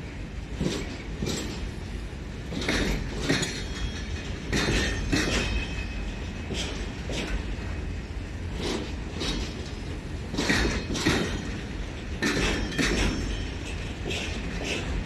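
Railway flat wagons loaded with military vehicles rolling slowly past, their wheels clacking over the rail joints in irregular pairs of knocks, with a faint metallic squeal between the knocks.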